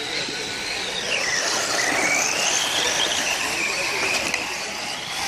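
Radio-controlled model racing cars running on a dirt track, their motors whining high, the pitch dipping and rising again as they slow and speed up.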